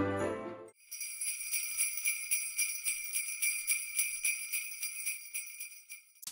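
Jingle bells shaken steadily for about five seconds, a bright, continuous jingling made of many rapid little strikes. It follows the tail of a music track that fades out within the first second.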